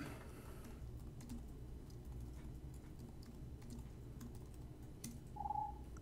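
Faint typing on a computer keyboard: scattered key clicks as a username is entered into a login form. A brief tone sounds about five and a half seconds in.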